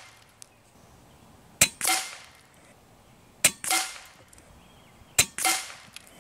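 Kalibrgun Cricket 2 Tactical .22 PCP air rifle firing three shots from the magazine, a little under two seconds apart. Each sharp crack is followed about a quarter second later by a longer, duller sound.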